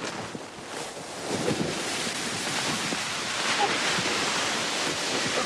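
Dry fallen leaves rustling and crunching under a person rolling and tumbling down a leaf-covered slope: a continuous rushing rustle that grows louder about a second in.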